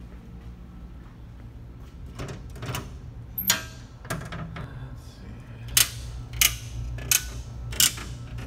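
Eaton circuit breakers being switched on one after another to power up the equipment: a row of five sharp snaps about two-thirds of a second apart in the second half, after a couple of earlier clicks, over a low steady hum.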